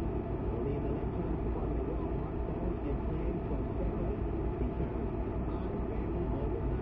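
Car driving at low speed, a steady low engine and road rumble heard from inside the cabin.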